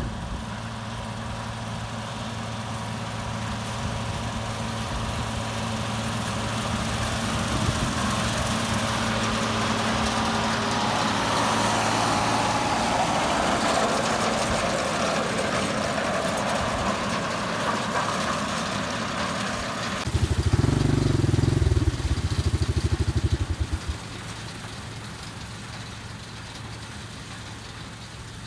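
Engine of a self-propelled windrower running steadily, growing louder as the machine comes nearer. About twenty seconds in the sound changes abruptly to a loud low rumble lasting a few seconds, then drops to a quieter steady background.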